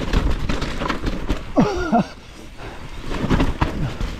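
Mountain bike descending rooty singletrack: a continuous low rumble with frequent knocks and rattles as the tyres hit roots. About a second and a half in, a rider lets out a short cry that falls in pitch.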